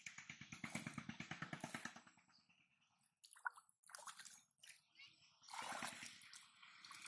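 Hands splashing and squelching in shallow muddy water while feeling for fish: a quick run of small splashes over the first two seconds, then scattered sloshes.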